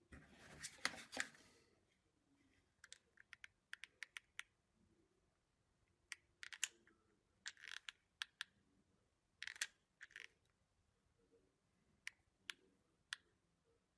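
Scattered light clicks and taps of small laser-cut wooden parts being handled and fitted together, in small clusters, with a brief scraping rustle about a second in.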